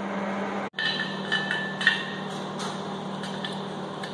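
Steel parts clinking and tapping against each other: a few short metallic pings close together soon after a brief break in the sound, then scattered clicks. A steady low machine hum runs underneath.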